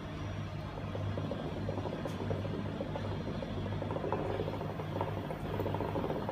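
Hookah water bubbling rapidly in the base as someone draws on the hose. It starts about a second and a half in and gets stronger toward the end, over a steady low hum.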